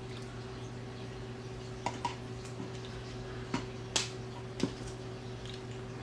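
A handful of light, scattered taps and clicks of a metal fork against a stainless steel mixing bowl while mashed egg yolk and mayonnaise are mixed, mostly in the second half, over a steady low hum.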